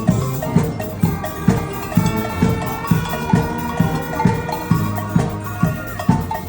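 A youth band playing an upbeat tune: held wind notes over a steady drum beat of about two strokes a second.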